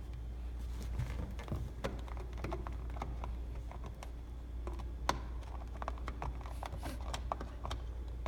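Irregular light clicks and taps, several a second, one sharper click about five seconds in, over a steady low hum.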